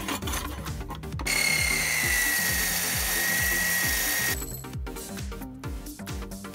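A power miter saw cutting through 1/4-inch 6061 aluminum angle: a loud, steady cutting noise with a high ringing tone that drops slightly in pitch. It starts about a second in, lasts about three seconds and stops suddenly. Background music with a steady beat plays throughout.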